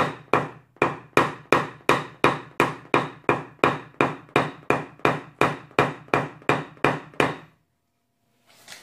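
PDR tap-down tool struck in a steady rhythm against a Toyota Camry's steel trunk lid, sharp metallic taps about three a second, knocking down the high spots to bring the metal level after hail dents have been pushed out. The tapping stops about seven seconds in.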